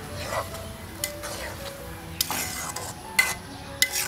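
A metal spatula stirring fish curry in a metal karahi, clinking and scraping against the pan about four times, over the sizzle of the curry cooking on the fire.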